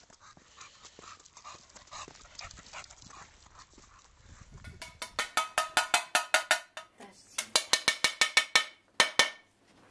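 English bulldog puppies yapping in quick, high, sharp yelps, about five a second. The yelps start about halfway in, pause briefly, and end with two last ones near the end.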